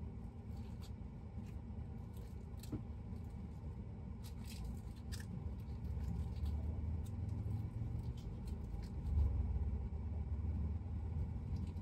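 Road and engine rumble inside a moving van's cabin, growing somewhat louder after about six seconds, with a few faint clicks and rustles.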